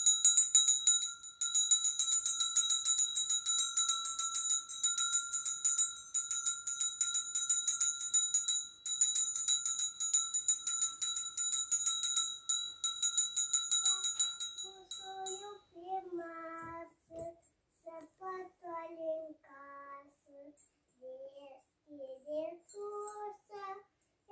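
Jingle bells shaken rapidly and continuously for about fourteen seconds, then stopping. A young voice then sings a carol alone, in short phrases with pauses.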